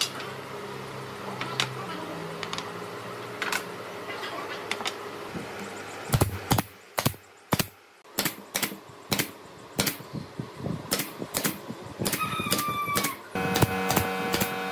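Pneumatic brad nailer firing brads into pine chair slats: sharp shots about two a second after a few light wooden knocks in the first seconds. Near the end a steady machine hum comes in under the shots.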